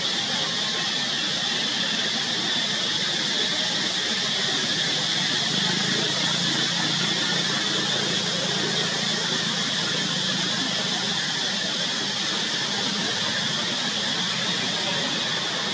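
Steady high-pitched drone of insects in the trees, unbroken and unchanging, with a faint low hum beneath.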